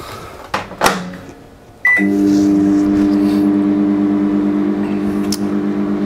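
Two knocks, then a short button beep, then an LG microwave oven starting up and running with a steady low hum, heating a microwave kiln for fusing glass.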